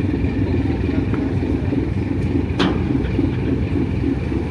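Steady low rumble of a passenger ferry's engines heard aboard ship, with one sharp knock a little past halfway.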